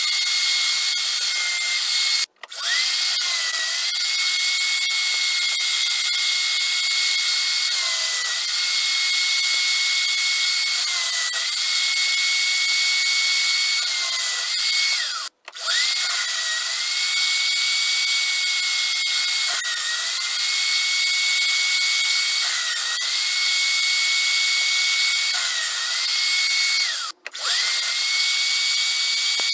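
Small power drilling spindle on a metal lathe's toolpost running with a steady high whine. Its pitch dips again and again as the bit is fed into the metal workpiece. The sound breaks off for a split second three times.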